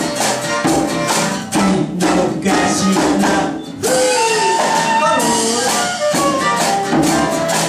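A live acoustic band playing: strummed acoustic guitar with tambourine keeping an even beat. About four seconds in, a soprano saxophone melody enters with phrases that bend and slide in pitch.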